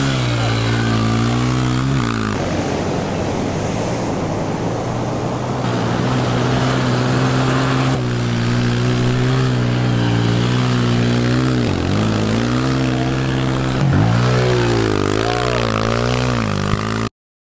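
Dirt bike engine running as it is ridden through beach sand, holding a fairly steady pitch. The engine drops briefly about twelve seconds in, then revs up and down several times near the end.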